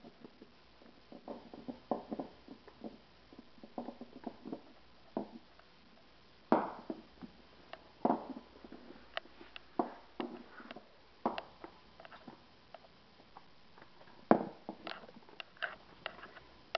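West Highland white terrier puppy gnawing and chewing a small hard chew: an irregular scatter of small crunches and tooth clicks, with a few sharper, louder clicks.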